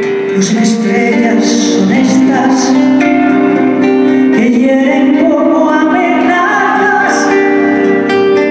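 Live band playing a ballad: a woman sings over plucked acoustic guitar and held instrumental notes.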